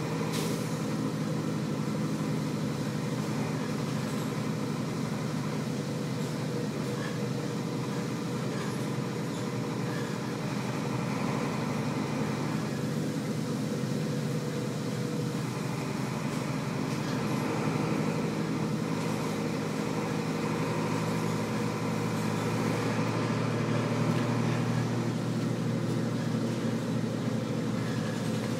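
Cabin sound of a 1998 Nova Bus LFS under way: its Detroit Diesel Series 40 inline-six diesel drones steadily, mixed with road noise. The drone swells a little a few times.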